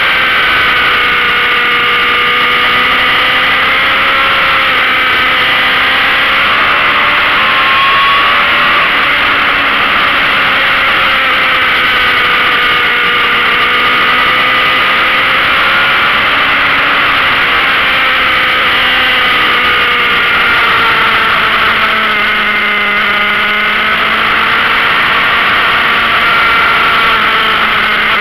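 Motorcycle engine running at road speed, its pitch rising and falling gently with the throttle over a steady rush of noise.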